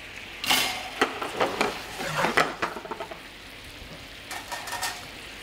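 Pork spare ribs bubbling and sizzling in a reduced honey sauce in a frying pan, with a run of utensil clatter and scraping in the first half.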